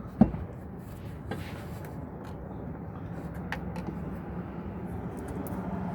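A single sharp knock, like a tool or part set down, then a steady low rumble that slowly grows louder, with a few light clicks.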